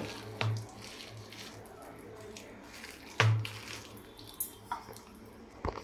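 Bare hands squishing and stirring thick ground urad dal batter mixed with chopped spinach in a bowl, with soft wet clicks and two dull knocks, about half a second in and a little after three seconds.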